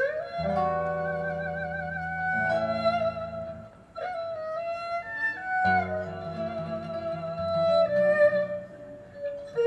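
Erhu playing a slow melody with vibrato and sliding notes, accompanied by acoustic guitar chords that drop out for a couple of seconds in the middle.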